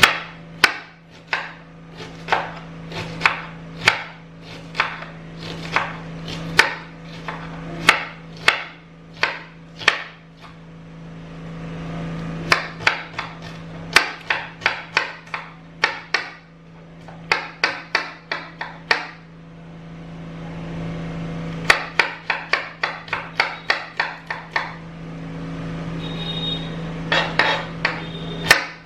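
Knife chopping red onion into tiny pieces on a cutting board: a run of sharp knocks, mostly one or two a second and quicker in places, broken by short pauses.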